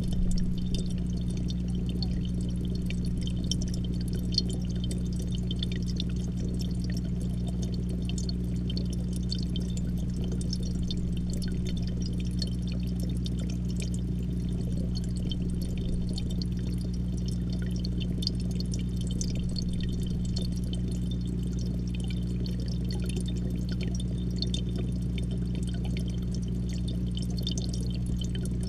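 Aquarium pump humming steadily under a dense crackle of small air bubbles, heard from inside the tank through a GoPro's waterproof housing. A brief bump right at the start.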